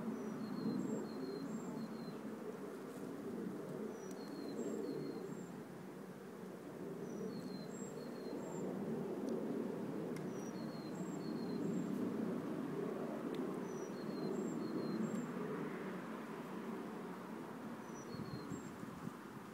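A songbird repeating a short phrase of high chirps about every three seconds, over a steady low outdoor background rumble.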